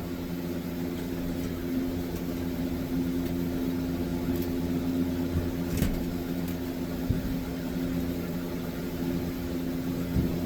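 Steady machine hum with a low rumble, unchanging throughout, and a single sharp click about six seconds in.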